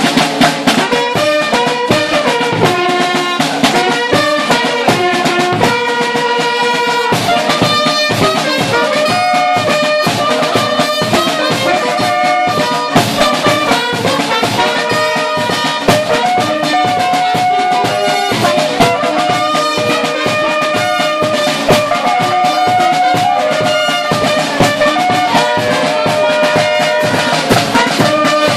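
Scout marching band playing a tune: brass holding long melody notes over steady, fast drumming.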